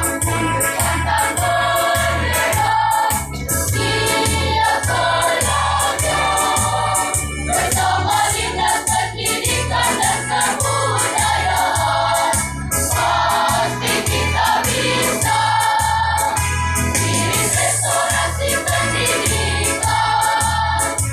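High school choir singing a march in parts over a steady, pulsing bass beat.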